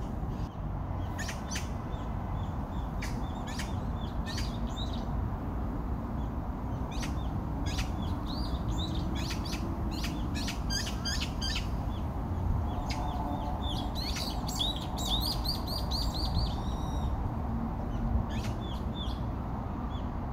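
Small birds chirping outdoors: short high calls scattered throughout, with a quick run of repeated chirps a little past the middle, over a steady low background rumble.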